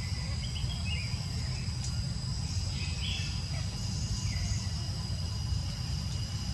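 Steady high-pitched drone of insects, with a few short high chirps scattered through it and a constant low rumble underneath.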